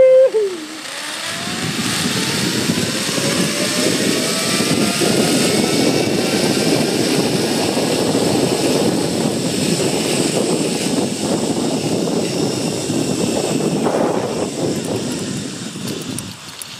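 Zipline trolley running down a steel cable, its pulley whine rising in pitch as it gathers speed, under steady rushing wind noise on the rider's camera. It dies away about a second before the end as the ride finishes at the platform. A brief loud pitched sound comes right at the start.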